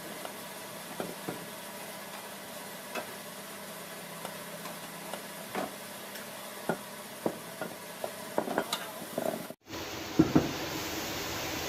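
Scattered light taps and clinks of a black-painted cast-iron sewing machine head being handled on a concrete floor, over a steady hiss, coming more often near the end. After a cut, louder clatter and knocks of cast-iron machine parts being picked up.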